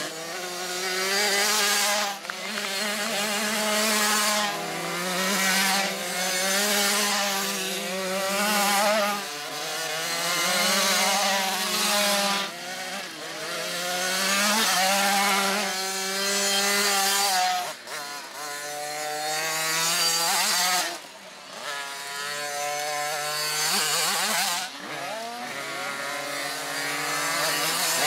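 Small youth motocross bike engines revving hard and easing off in repeated surges every couple of seconds, with a high, buzzing note and brief drops in between.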